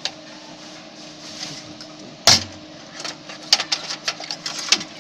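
A single sharp knock a little over two seconds in, then a run of quick plastic and metal clicks and clatter: a desktop PC's power supply cables being unplugged from the motherboard and handled inside the metal case.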